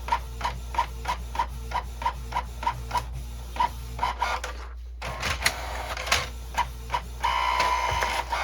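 Canon inkjet printer printing a page: rhythmic clicking about three times a second, then a busier stretch of mechanism noise and a steady motor whine near the end.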